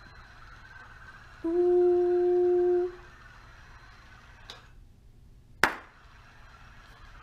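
A person hums one steady note for about a second and a half, then, about three seconds later, there is a single sharp clap. These are voice and clap commands to a sound-controlled robot: a held note makes it pivot, and a clap switches it between driving and stopping.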